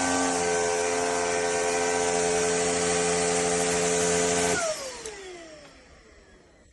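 Cordless stick vacuum cleaner running steadily with a whining motor and a rush of air, then switched off about four and a half seconds in, its motor whine falling in pitch as it spins down and fades away.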